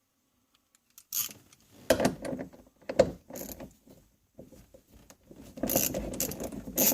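Socket ratchet wrench clicking as it turns a seatbelt anchor bolt, with knocks and rattles of tools and parts. After a moment of near silence come scattered clicks and knocks, then a rapid steady ratcheting from about two-thirds of the way in.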